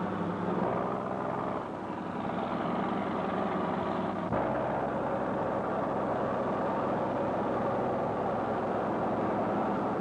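Bulldozer engine running steadily. The sound shifts abruptly about four seconds in.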